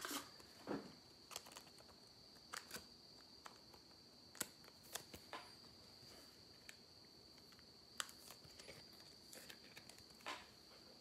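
Near silence: room tone with a faint, steady high-pitched whine and a few scattered faint clicks.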